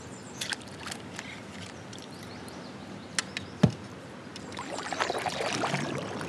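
Kayak paddle work: a few light clicks of gear against the hull, one sharp knock a little past halfway, then the paddle dipping and swishing through water, growing louder near the end.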